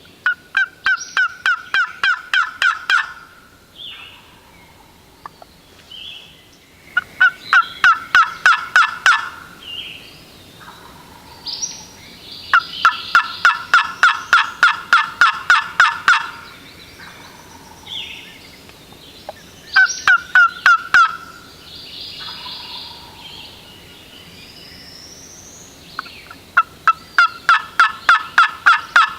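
Turkey yelping: five runs of about eight to fifteen evenly spaced notes, roughly four or five a second, with pauses of a few seconds between runs.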